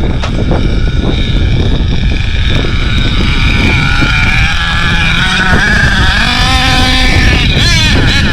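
HPI Savage X4.6 nitro RC monster truck's small two-stroke nitro engine running at high revs, its high-pitched whine rising and falling repeatedly as the throttle is worked, over wind rumble on the microphone.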